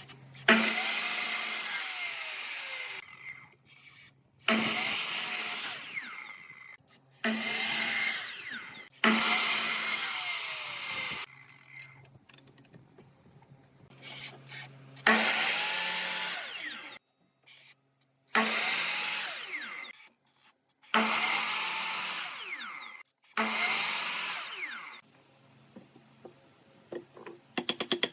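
Power tool working pallet wood in about eight runs of two to three seconds each, starting and stopping abruptly with short pauses between.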